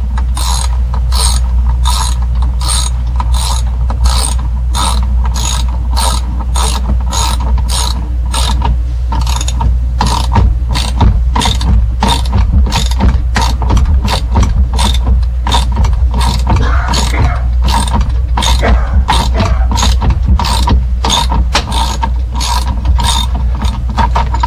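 Hand socket ratchet clicking steadily, about two clicks a second, as it turns the nut on a GM ignition puller to force the ignition lock cylinder out of the steering column.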